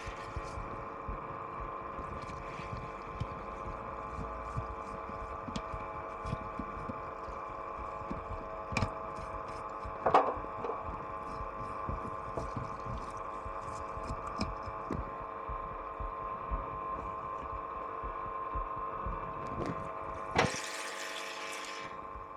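Steady machine hum, likely a pump or cleaning machine, with small clicks and knocks from the carburettor washing and a louder clack about ten seconds in. A short burst of hiss comes near the end.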